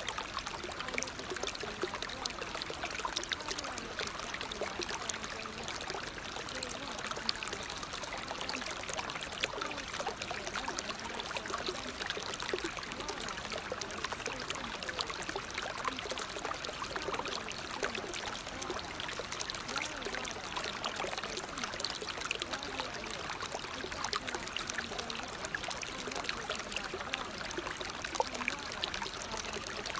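Steady sound of running water, a trickling stream.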